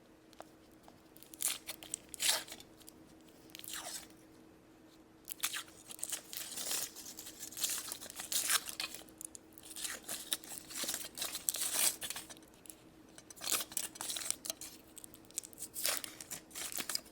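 Foil wrapper of a Kinder Surprise chocolate egg being torn open and crinkled by hand, in irregular bursts of rustling with short pauses between.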